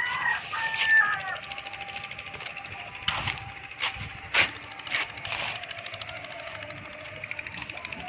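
A rooster crowing in about the first second, a held call at a steady pitch. Several sharp knocks follow between about three and five seconds in.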